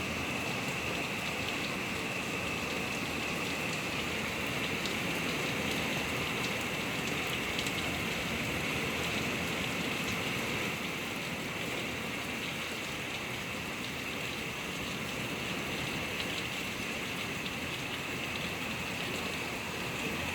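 Heavy rain pouring steadily, splashing on surfaces, with water falling from a roof gutter.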